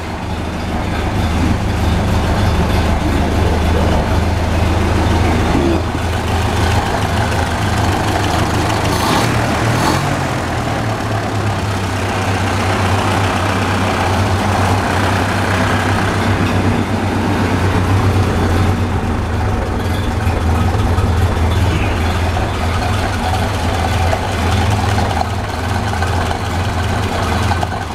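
1929 Model A Ford's rebuilt four-cylinder flathead engine running steadily at idle on its first run after the rebuild, sounding pretty good.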